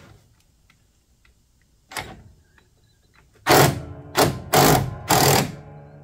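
Cordless impact wrench hammering in short bursts on a mower-deck pulley bolt, loosening it to take the pulley off: one short burst about two seconds in, then four bursts in quick succession near the end.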